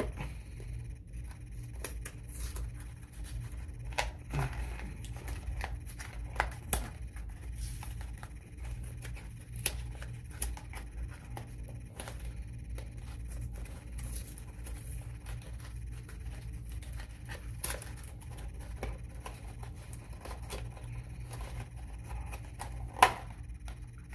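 Handling noise from a cardboard snack package being turned over and examined: scattered small clicks, taps and scrapes, with one sharper click near the end, over a steady low hum.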